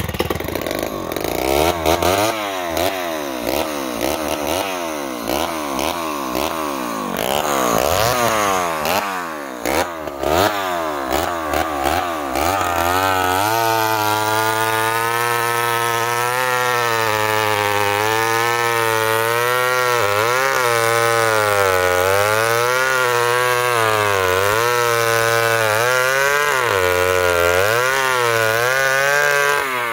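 Old Homelite XL-12 two-stroke chainsaw running at high speed. For the first twelve seconds or so its pitch wavers rapidly up and down, then it holds steady with slow dips as the worn chain cuts into a tree root.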